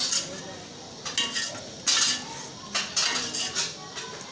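Steel ladle scraping and knocking against the inside of an aluminium pressure cooker as a masala is stirred and fried in oil, several strokes about a second apart.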